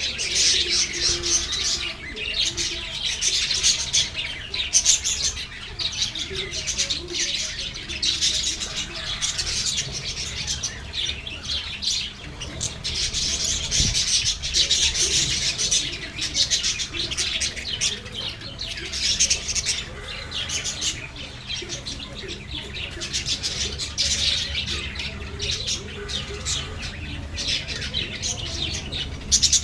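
Lovebirds chattering: many short, shrill chirps overlapping continuously.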